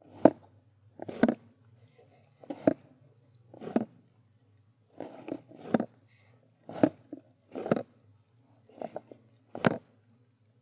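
A big cup with a straw being handled: soft bumps and movement, about ten short separate knocks and rustles roughly once a second, over a faint steady hum.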